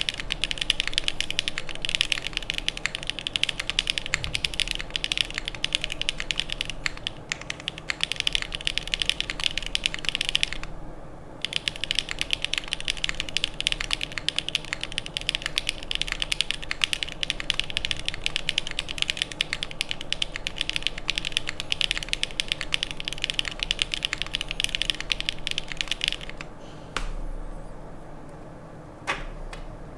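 Fast, continuous typing on a Leviatán R1 mechanical keyboard, gasket-mounted with no plate, with lubed Gateron Pure Berry switches and GMK keycaps. The typing stops briefly about eleven seconds in, and over the last few seconds gives way to a few separate keystrokes.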